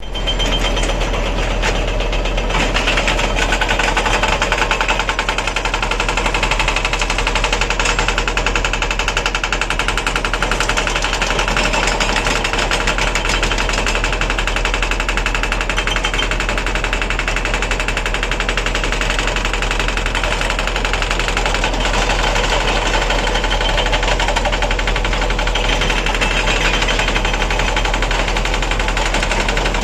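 Engine of heavy earthmoving machinery running steadily under load, with a fast, even rattling pulse and a deep steady hum.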